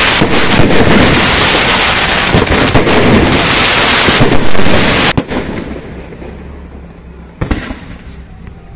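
Fireworks display: a dense, loud barrage of crackling bangs and bursts that stops abruptly about five seconds in. A fainter fading rumble follows, with one more sharp bang near the end.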